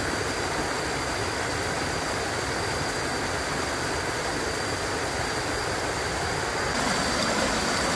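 Water pouring over a concrete weir into the pool below, a constant, even rushing noise that gets slightly louder near the end.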